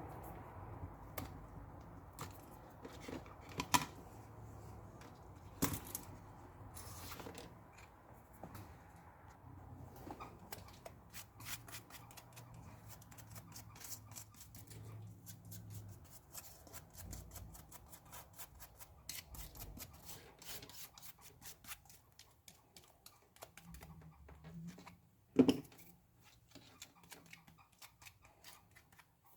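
Scraping and picking at an iPad's frame to clear old adhesive tape and broken glass: quiet, irregular scrapes and small ticks, with one sharp knock near the end.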